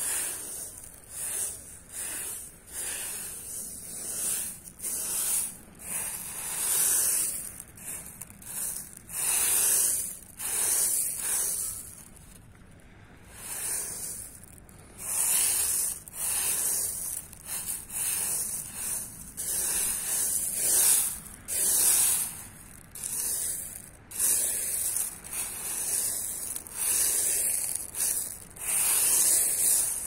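Footsteps crunching on a shingle beach of small rounded pebbles, slow steps about one a second, with a pause of a couple of seconds near the middle.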